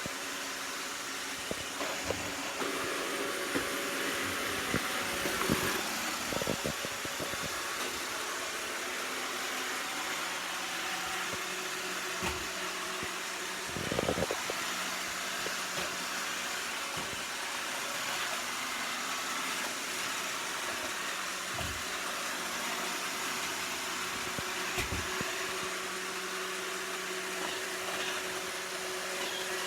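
iRobot Roomba 690 robot vacuum running: a steady whir of its suction motor and brushes, with a few short dull knocks now and then.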